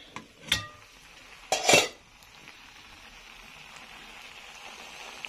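A stainless steel pot lid clinks and rings as it is lifted, with a louder clatter about a second and a half in, then rice and spaghetti in the open pot sizzle steadily.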